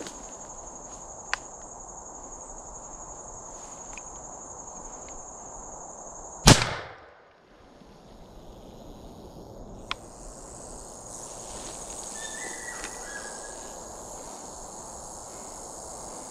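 A single shotgun blast about six and a half seconds in, the shot that kills a rattlesnake in the grass. It goes off over a steady high insect drone that falls silent for a few seconds after the shot and then returns, with a couple of small clicks.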